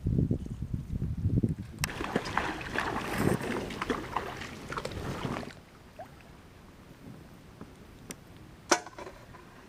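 Shallow water splashing and sloshing, after a low irregular rumble at the start; the splashing stops after about five and a half seconds, leaving quiet broken by a few sharp clicks, one louder near the end.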